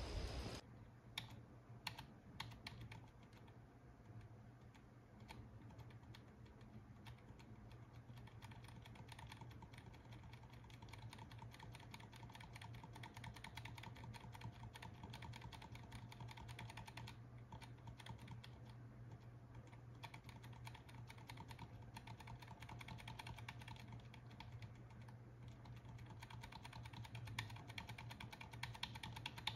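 Faint, rapid clicking of computer keys over a low steady hum.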